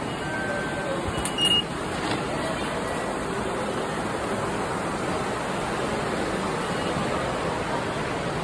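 Steady rushing background noise of a railway station concourse, with a short electronic beep from an automatic ticket gate about a second and a half in.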